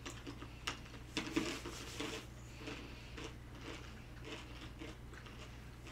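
Crunching and chewing of crunchy coated-peanut snacks close to the microphone, a quick run of crisp crunches in the first couple of seconds, then scattered ones, over a steady low hum.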